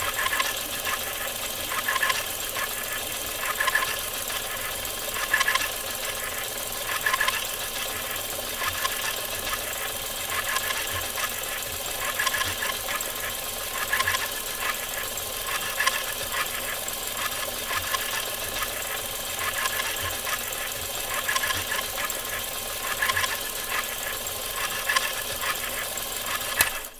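Sound effect of a Super 8 film mechanism running: a steady mechanical whir and clatter of film through the sprockets over constant hiss, swelling louder about every second and a half to two seconds. It cuts off suddenly near the end.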